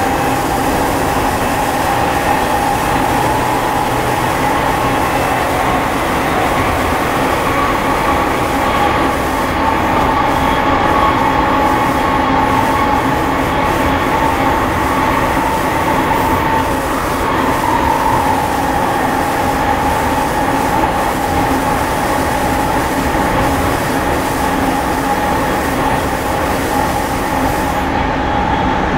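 Running noise inside an Odakyu 5000 series electric train cruising at speed: a steady rumble of wheels on rail with a steady whine from the drive. The whine lifts slightly about halfway through and settles again.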